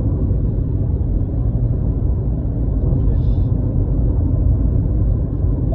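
Cabin noise of a Honda car driving at road speed: a steady low rumble of tyres and engine.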